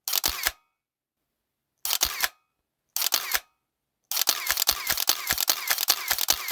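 Sharp mechanical clicks: three short clusters about a second apart, then from about four seconds in a fast, continuous run of clicks.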